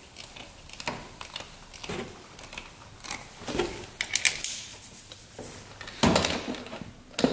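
Small metallic clicks and rattles as a compression tester's hose fitting is threaded by hand into an ATV engine's spark plug hole, with a louder clatter about six seconds in as the gauge is handled against the bodywork.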